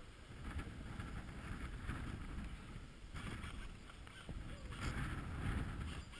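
Uneven wind rumble and rustling on a GoPro's microphone, with scattered soft scuffs.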